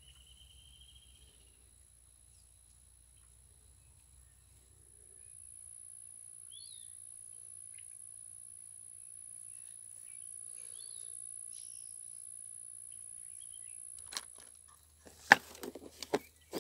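A steady high-pitched insect drone, with a short bird trill at the start and a few bird chirps. From about fourteen seconds in, several sharp clicks and knocks, the loudest sounds here, as a clear plastic tackle box is handled and snapped shut.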